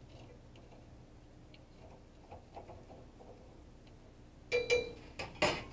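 Metal cookware clinking: light ticking, then a few sharp, briefly ringing metallic clinks near the end.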